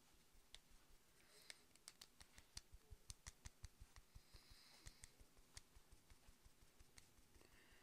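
Faint, quick soft taps of a small makeup brush stippling foundation onto the forehead, several a second, thinning out after about five seconds.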